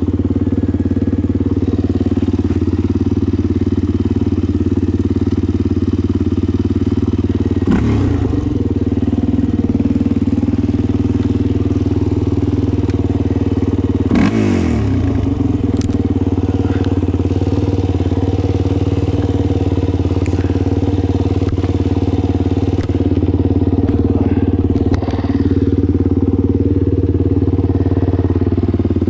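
Kawasaki KFX450R quad's single-cylinder four-stroke engine running steadily at low revs, with two short revs of the throttle about eight and fourteen seconds in.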